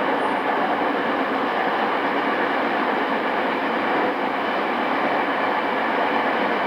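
Interior running noise of a JR East E217 series commuter train, recorded aboard the motor car MoHa E217-2006 on cassette tape. A steady, even rumble of wheels on rail while cruising, with no clear clicks of rail joints and no change in speed.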